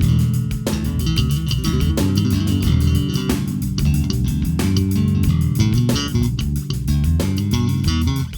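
Electric bass guitar playing a fast, busy line, with many sharp note attacks each second over a full low end.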